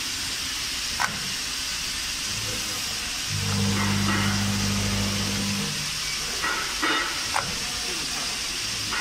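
Automatic coffee capsule filling machine running, with a steady hiss throughout. A motor hum starts about three seconds in and stops a couple of seconds later, and there are a few sharp mechanical clicks, one near the start and two close together near the end.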